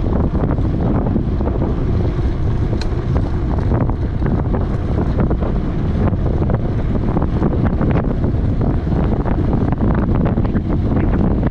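Strong wind buffeting the microphone during a bike ride: a loud, steady, rumbling roar of wind noise.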